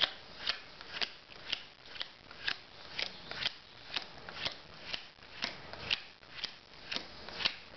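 Playing cards dealt one at a time onto a wooden tabletop, each card landing with a sharp click, about two a second in an even rhythm.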